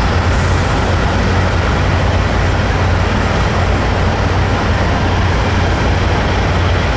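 Semi truck's diesel engine running with a steady low rumble as the tractor-trailer reverses slowly.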